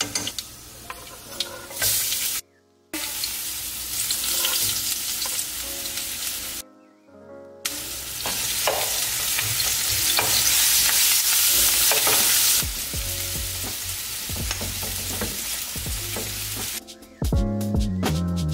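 Sliced potatoes and ginger sizzling as they fry in hot oil in a nonstick frying pan, stirred now and then with a metal spoon. The sizzle drops out twice for a moment.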